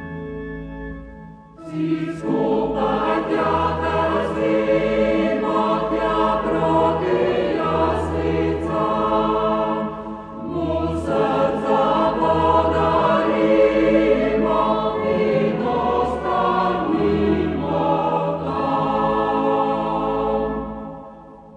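Choir singing a Christmas song. The full choir comes in about two seconds in, breaks off briefly about ten seconds in, and its last chord fades away at the end.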